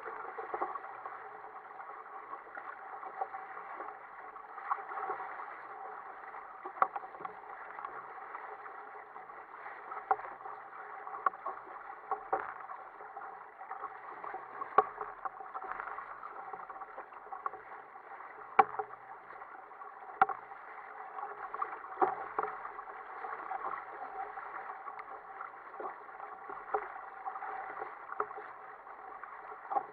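Water rushing and slapping against the hull of an Ocean Kayak Prowler 13 sailing kayak with outrigger floats, under way through choppy sea. It is a steady, muffled wash with frequent irregular sharp slaps and knocks.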